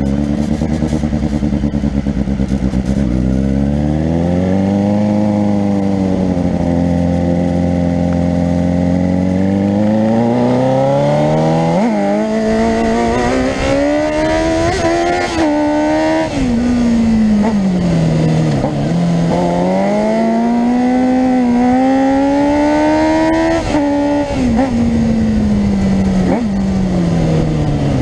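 Fuel-injected Yamaha 600 inline-four sport-bike engine swapped into a Honda 450R ATV, running under way. Its revs climb and fall repeatedly, with several sharp drops in pitch in the middle and a slow fall near the end.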